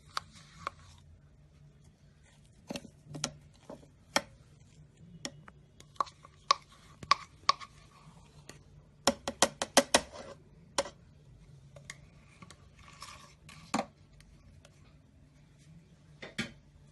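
Ice cream being scooped from its tub into a blender jar: a string of sharp clicks and knocks of a utensil on the tub and jar, with a quick run of about eight taps about nine seconds in and light scraping between them.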